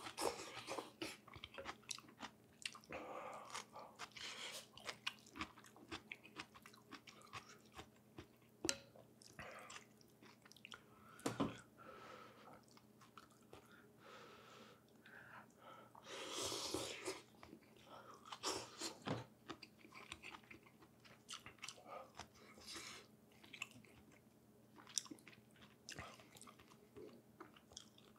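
Quiet, close-up chewing and biting of pho beef and noodles: a steady run of small wet mouth clicks and smacks, with a longer noisy stretch a little past halfway.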